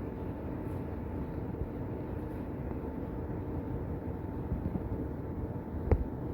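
Steady low rumbling background noise, with one short sharp knock near the end.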